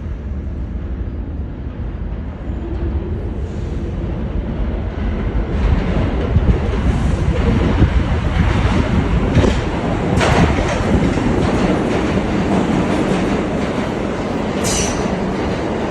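New York City subway W train running on its tracks: a heavy rumble that grows louder about four seconds in, with sharp wheel clacks in the middle and a brief high-pitched wheel squeal near the end.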